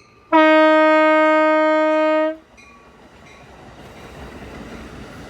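Single-note truck air horn sounding one long blast of about two seconds, then the rising noise of a train drawing near.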